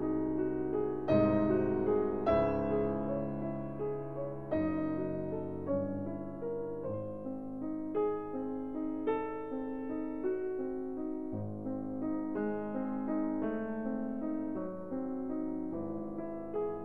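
Background piano music: a slow, gentle melody of single notes struck about once a second and left to ring over held chords.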